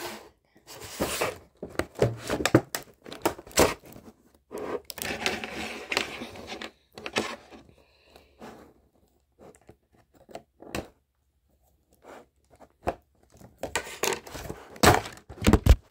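Cardboard toy box and its plastic window packaging being torn, scraped and crinkled in irregular bursts as the toy is worked out, with a few sparse clicks in the middle. Near the end comes a cluster of loud knocks and a heavy thud as the propped-up phone falls over.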